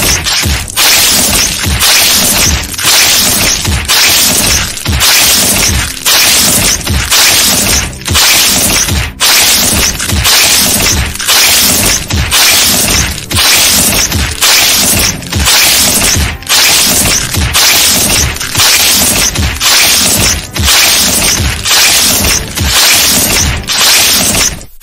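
Cartoon fight sound effects: a loud, continuous barrage of hits, smashes and whooshes repeating about twice a second, for a beating.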